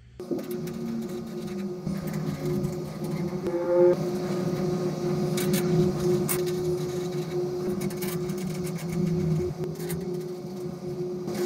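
A steady machine hum with one constant tone, with a short rising whine about four seconds in and a few light clicks.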